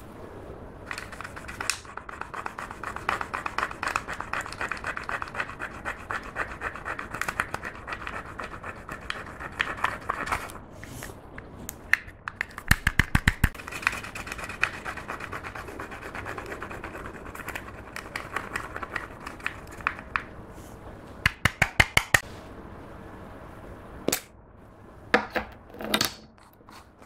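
A stick scraping pressed blush powder out of a plastic compact in quick, repeated scratching strokes, with runs of rapid clicks. A few separate sharp clicks come near the end.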